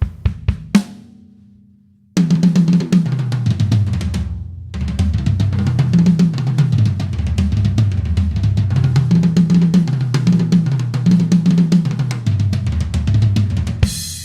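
Premier XPK drum kit with new heads being played: a few opening hits, a pause of about a second, then a steady groove on kick, snare and hi-hat from about two seconds in, ending on a cymbal that rings out.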